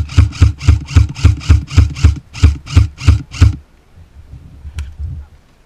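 VFC HK416 airsoft electric rifle firing a rapid string of single shots, about four a second, each a sharp thump, stopping about three and a half seconds in.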